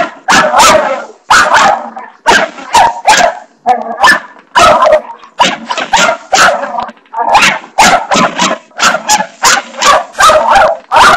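Dog barking rapidly and repeatedly, about two sharp barks a second without pause, excited barking at a spring doorstop that has just been flicked.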